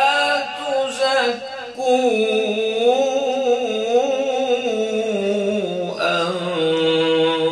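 Man reciting the Quran in the melodic, drawn-out tajweed style, holding long notes with a wavering pitch; a new phrase starts about six seconds in.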